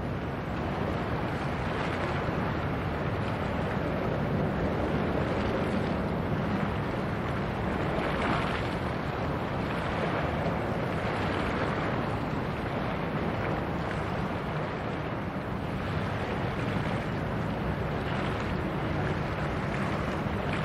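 A passing cargo ship's engine droning steadily and low under wind buffeting the microphone and the wash of sea water.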